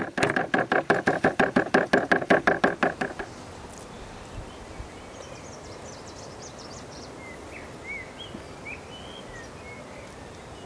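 Wooden meat mallet pounding chicken breast flat on a wooden cutting board: a quick, even run of about five or six blows a second, each with a hollow woody ring. It stops a little over three seconds in.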